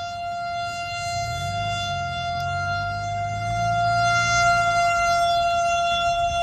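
Federal Signal STH-10 outdoor warning siren sounding one steady tone for a tornado warning, slowly growing louder.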